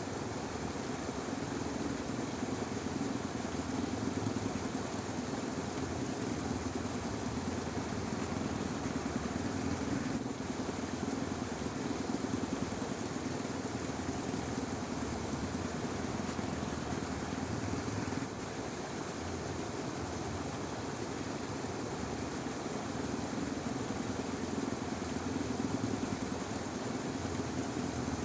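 A steady chorus of frogs in a rice paddy, a dense low drone with no pauses.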